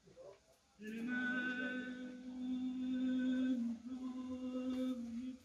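Music: a melody of long, steadily held notes that steps in pitch a couple of times, starting about a second in.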